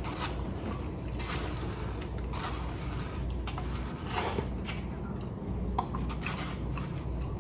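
A man slurping instant cup ramen noodles off chopsticks and chewing, with several short, wet slurps spread through.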